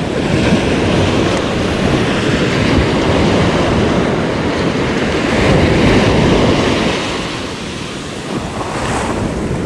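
Ocean surf breaking and washing up the sand in a steady loud wash, with wind rumbling on the microphone; it eases a little near the end.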